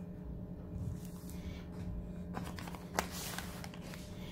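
Plastic bags crinkling faintly as hands handle the aluminium oil pumps, with one sharp click about three seconds in, over a steady low hum.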